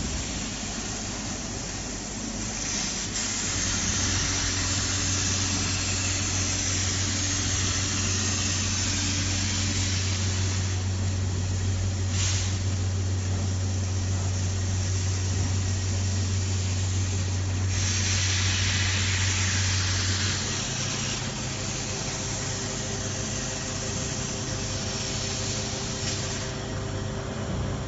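Laser welding machine with robot running: a steady low hum that steps up in pitch about 20 seconds in, with stretches of hiss coming and going over it.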